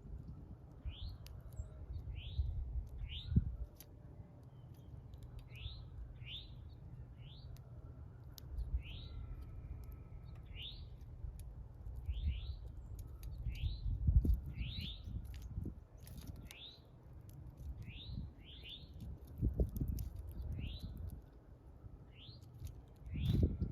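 A small bird chirping over and over, one short rising chirp about every second, with low thumps and rumble now and then underneath.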